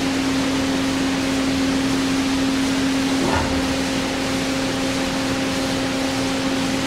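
Hyd-Mech S-20A horizontal band saw running with a steady machine hum over a constant hiss, and a brief knock about three seconds in.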